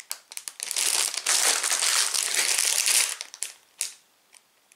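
Clear plastic Lego parts bags full of pieces being handled, crinkling loudly for about two and a half seconds, then a couple of brief crackles near the end.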